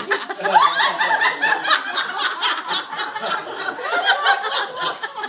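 A small group of people laughing and chuckling, several voices overlapping.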